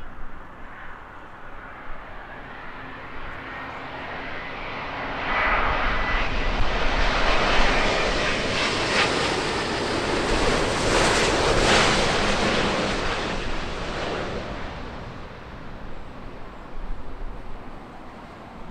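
Jet airliner passing low overhead on final approach to land: the engine noise swells from about four seconds in, is loudest through the middle with a faint high whine, then fades away.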